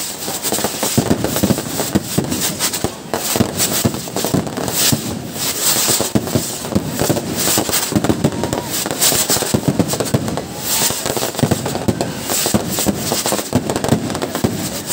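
Fireworks and firecrackers going off non-stop: a dense, rapid stream of bangs and crackling with no pause.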